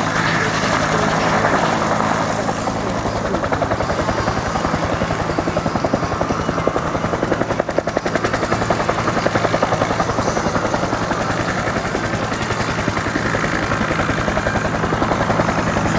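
Helicopter running close by, its rotor beating rapidly and evenly over a steady engine hum.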